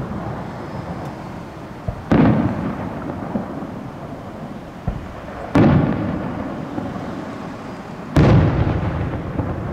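Aerial fireworks shells bursting three times, each a sudden loud bang that rumbles and echoes away over a second or two.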